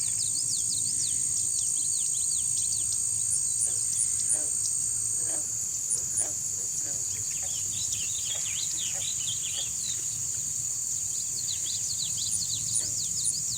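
Outdoor chorus of calling frogs and insects: a steady high-pitched insect trill, part of which stops about five seconds in, under clusters of many short, quick falling chirps that thicken in the middle and again near the end.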